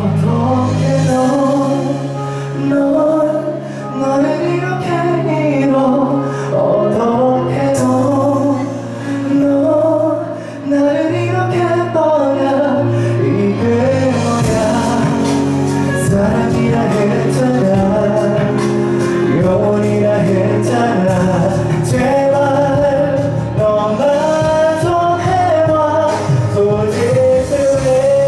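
Male vocalist singing a slow pop song live into a handheld microphone, with musical accompaniment; near the end he holds a long note.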